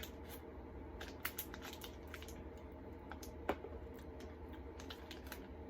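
Scattered small clicks and taps over a steady low hum, with one sharper click about three and a half seconds in.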